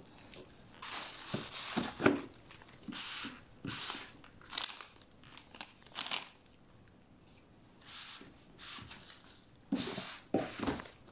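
Plastic bubble wrap crinkling in irregular bursts as packaging is handled, with a sharp knock about two seconds in and a few knocks near the end.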